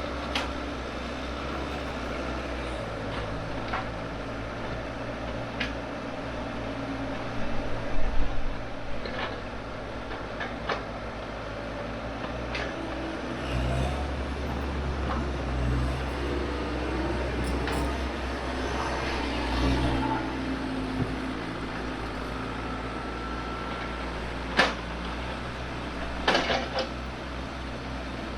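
Excavator's diesel engine running steadily under work, with occasional sharp clanks and knocks from the bucket and linkage, the loudest cluster about eight seconds in and more near the end.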